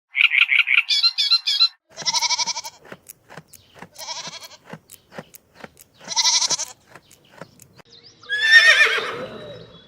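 Goats bleating in a series of short, trembling calls, with a regular ticking beat between them, then a loud, falling horse whinny near the end.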